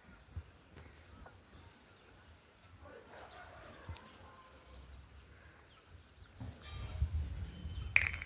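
Quiet outdoor background with faint, scattered bird chirps. A low rumble comes in about two-thirds of the way through, and a short sharp rising sound comes just before the end.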